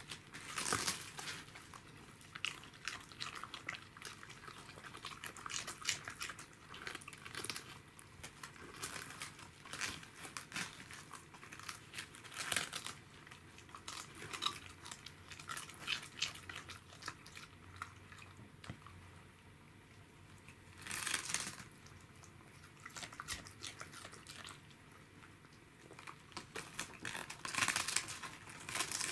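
Pembroke Welsh corgi biting and chewing a raw head of cabbage: crisp crunching and tearing of the leaves in irregular bursts, with a few louder spells of crunching.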